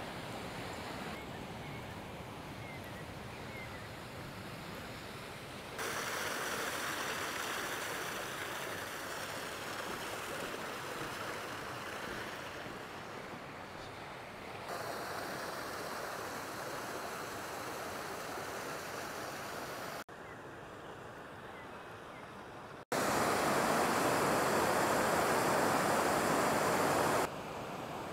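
Steady rush of flowing water. The level steps up and down abruptly several times, and it is loudest for a few seconds near the end.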